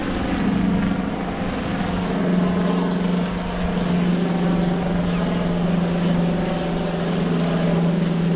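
A small motor hums steadily over a wash of water and wind noise, its pitch sinking slightly across the stretch.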